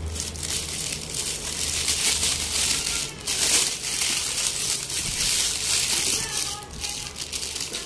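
Clear plastic wrapping crinkling and rustling as it is handled and pulled off a new motorcycle exhaust header pipe, in a steady run of crackles.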